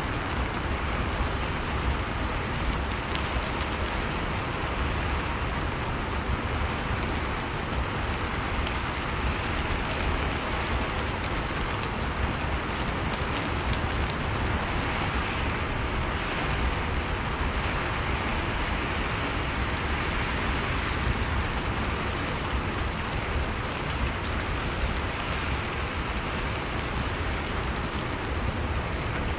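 Steady rain falling on a surface, a constant even hiss with fine scattered drop ticks and a low rumble beneath.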